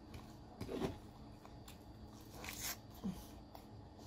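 Wet chewing of a mouthful of spicy sauced octopus, with a few soft lip smacks scattered through it.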